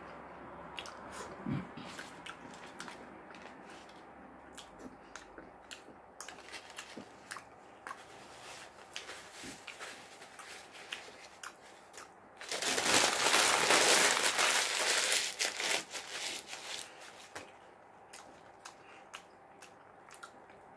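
Eating sounds while the last scraps of a sandwich are picked up and chewed: small clicks and rustles throughout. About twelve seconds in comes a loud crinkling of paper wrapping lasting some four seconds.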